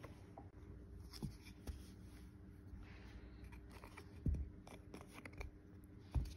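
A rabbit mouthing and tossing a clear plastic toy on a fabric couch: scattered light clicks and rattles of the plastic pieces, with soft thumps about a second in, about four seconds in and near the end.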